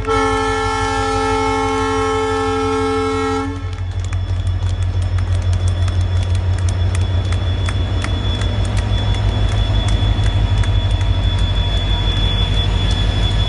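A train's horn sounds a steady chord-like blast for about three and a half seconds, then stops. The train rumbles and its wheels clatter as it pulls out, growing slightly louder, with scattered clicks and a thin high whine.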